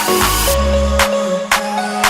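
Background music: an electronic pop track with a steady beat, bass and sustained synth notes.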